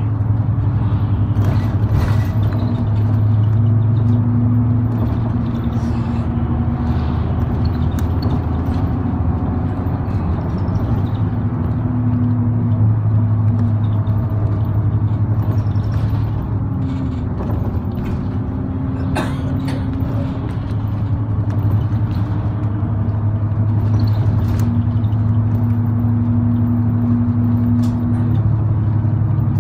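Route bus heard from inside the passenger cabin: steady engine drone and road noise, its pitch rising and falling a little. A few sharp clicks and rattles come through now and then.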